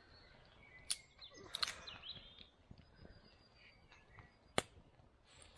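Aluminium beer can opened, a click about a second in followed by a brief fizz, with small bird chirps and the crackle of a wood campfire. A single sharp crack about four and a half seconds in is the loudest sound.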